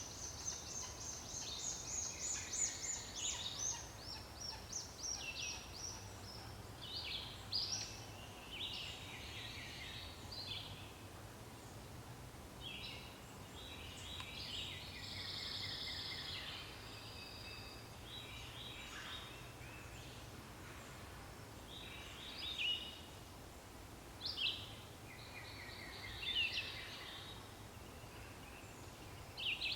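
Songbirds singing: a run of high chirps and rapid trills in short, overlapping phrases, some bird starting a new phrase every few seconds.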